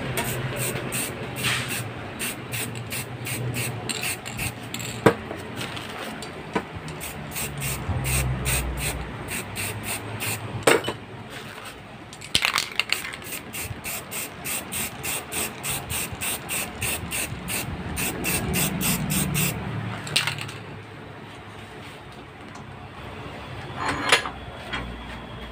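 Aerosol spray-paint can hissing in several short bursts while the body of a motorcycle rear shock is painted black, over a fast regular ticking that stops about twenty seconds in.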